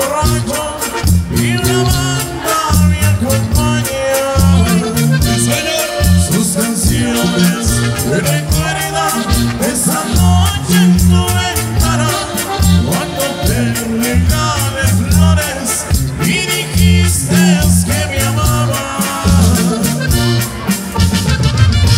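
Regional Mexican band playing live, with drums and bass keeping a steady dance beat under the melody.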